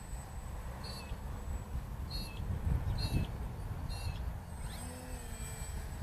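Wind buffeting the microphone as a constant low, gusty rumble. Over it a bird gives four short high chirps about a second apart.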